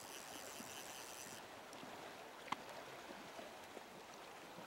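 Faint steady rush of river water flowing around wading anglers, with a single sharp click about two and a half seconds in.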